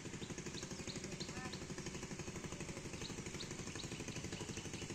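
A small engine running steadily with a fast, even putter that does not change.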